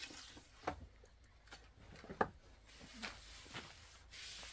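A few scattered sharp knocks or taps, about four in all, the loudest about two seconds in, over faint background noise.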